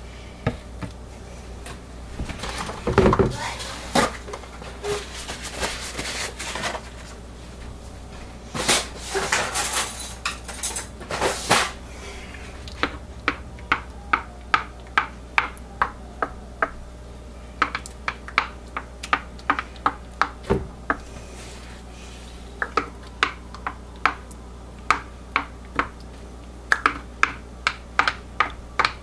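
Plastic pitchers and utensils knocking and clattering while soap batter is poured and worked in a wooden loaf mold. From about halfway on comes a long run of light, sharp clicks, two to three a second, as the soap's surface is swirled and textured.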